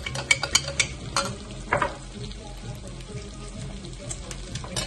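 A metal spoon clinking rapidly against a glass while stirring a sauce, stopping about a second in after a couple more clinks. Under it, a chicken breast sizzles steadily as it fries in oil in a pan, with small crackles.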